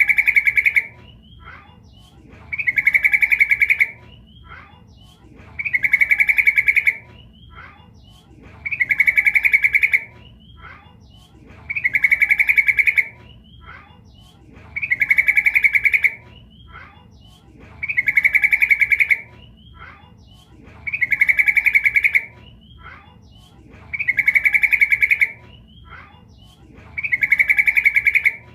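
Female sooty-headed bulbul (trucukan) calling, the call used as a lure to draw males: a short note or two, then a loud, rapid chattering phrase about a second long. The phrase repeats at a steady pace about every three seconds.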